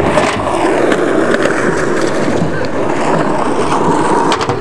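Skateboard wheels rolling over asphalt and concrete, a steady gritty rumble, with a few sharp clicks near the end.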